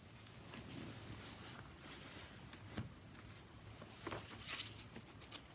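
Faint rustling and a few soft knocks as a hardcover picture book is lowered and handled to turn the page.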